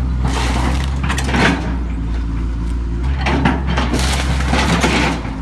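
Excavator's diesel engine running steadily while its bucket tears into a house roof, with bursts of crunching, cracking wood and roofing about half a second in, around three seconds in, and again around four to five seconds in.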